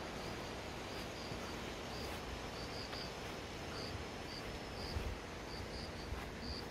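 Outdoor ambience: a steady hiss with short, high chirps repeating irregularly, a few times a second, and a couple of soft low bumps near the end.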